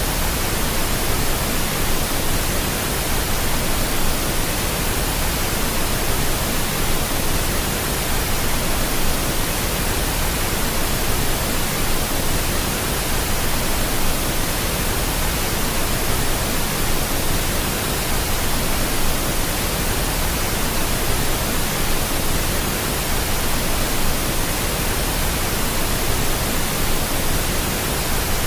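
Steady pink noise: an even, unchanging hiss spread across all pitches, with no events or changes.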